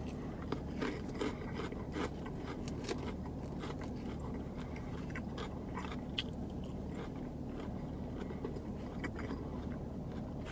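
Eating salad with a plastic fork from a plastic bowl: scattered small clicks and scrapes of the fork against the bowl, with chewing, over a steady low hum.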